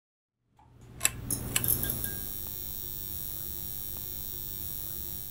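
Intro logo sound effect: two sharp clicks about a second in, then a steady held ringing tone that fades out at the end.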